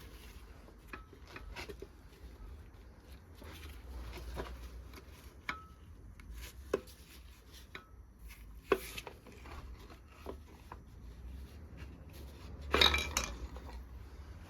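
Hand tools and metal parts of a Rover V8 engine clinking and tapping as the engine is dismantled, with scattered sharp clinks, one ringing briefly, and a louder clatter of metal near the end.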